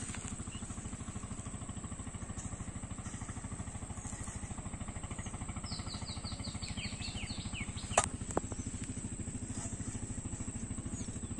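An engine running steadily with a fast, even chugging throb. A quick run of high chirps comes about six seconds in, and a sharp click about eight seconds in.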